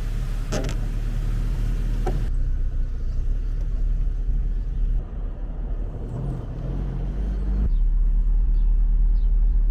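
Motor vehicle engine and road noise, a steady low drone, heard as several short clips that change abruptly a few times.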